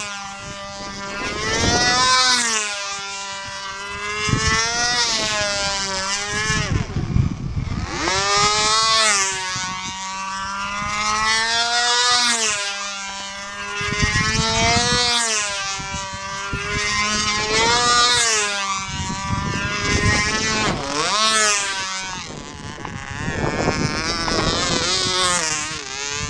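Small glow-fuel model airplane engine of a Guillotine control-line combat plane running at high speed in flight. Its high-pitched whine rises and falls in pitch and loudness about every three seconds as the plane circles. It runs strong on a good fuel mix.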